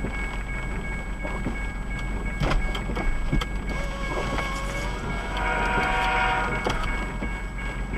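Railroad crossing warning bell ringing steadily at an active crossing, heard from inside a car with rain and a few thumps. A brief horn-like tone sounds in the middle.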